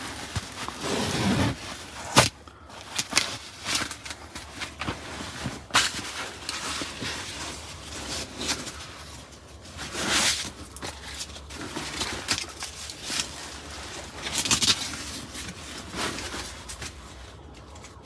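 Rustling and scraping of bedding, a cushion and its cover being handled as a van bed is folded into a seat, with a couple of sharp knocks.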